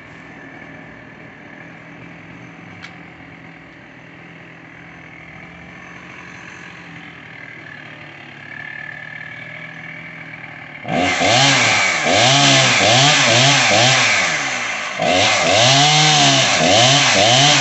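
Husqvarna 61 two-stroke chainsaw idling fairly quietly, then about eleven seconds in it is opened up loud, its engine pitch surging up and down over and over, easing briefly once before surging again.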